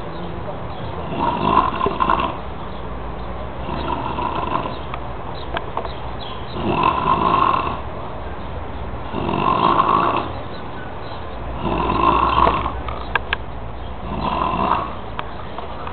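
A sleeping person snoring loudly and regularly, six snores about every two and a half seconds, over a steady low hum.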